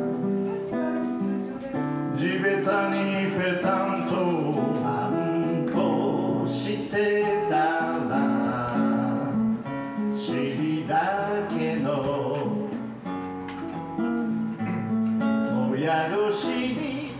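A man singing while playing an acoustic guitar, his voice coming in phrases over the guitar.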